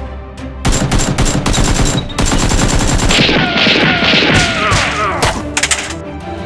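Rapid burst of machine-gun-style gunfire starting about half a second in, the shots densely packed for a few seconds, with a few last shots near the end.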